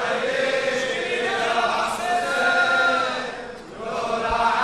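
A group of men chanting a line of a Shia latmiya (lament) together, their voices blended, with a short drop-off about three and a half seconds in before the chant resumes.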